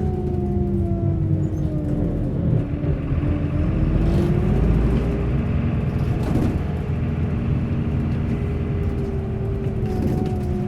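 Bus engine running under a deep rumble. Its pitch falls over the first few seconds, rises again, then holds steady, with a few faint rattles along the way.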